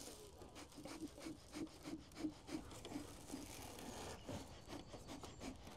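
Bellows of a bee smoker fuelled with pine needles being pumped: a faint rhythmic rubbing puff, nearly four a second, over the first three seconds or so, with scattered light clicks.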